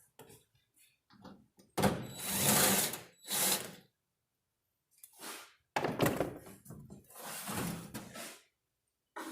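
Taking the tailgate's inner panel and plastic cover off a 2009 Ford Ranger: several separate bursts of handling noise, with knocks, scraping and rattling of plastic and metal, the loudest about two seconds in.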